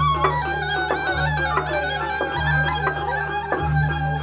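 Balinese gamelan music playing: struck metallic pitched notes in a stepping melody over deep bass notes that change about once a second.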